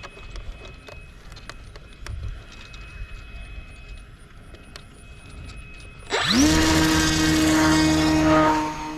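Mini Apprentice S's replacement electric motor and propeller spinning up about six seconds in: a quick rising whine that settles into a loud, steady drone for about two and a half seconds, then drops to a fainter hum. Before that, only a few faint clicks.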